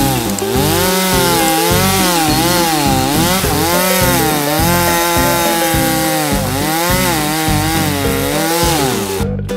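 Cordless oscillating multi-tool cutting through a caravan's fibreglass-and-foam composite roof skin. It runs continuously with a whining pitch that wavers up and down as the blade bites, and stops shortly before the end.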